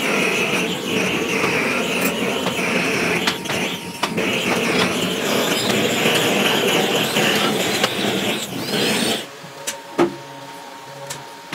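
Hose-fed gas torch burning with a steady rushing flame noise as it is played over sand casting moulds; it stops about nine seconds in, and a single sharp knock follows a second later.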